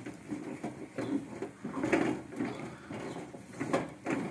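Spoon stirring thick, stiffening maize-flour ugali in a pot: a run of uneven scrapes and knocks against the pot.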